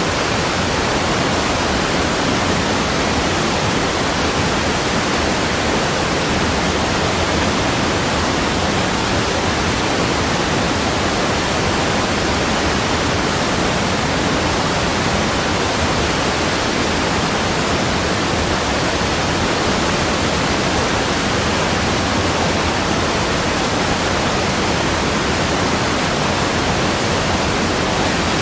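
Rushing water, a steady, even noise that never changes.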